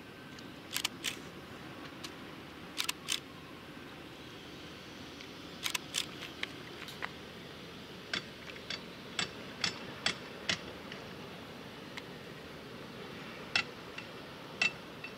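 A series of sharp clicks, several in quick pairs and then a run of single clicks about every half second, over a steady low rumble.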